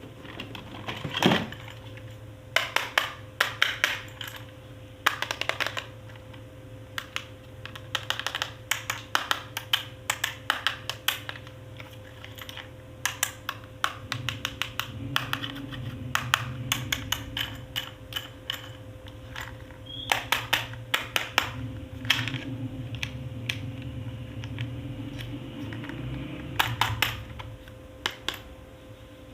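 Plastic toy pieces and packaging handled during an unboxing: many sharp clicks and taps in irregular clusters, over a faint steady hum.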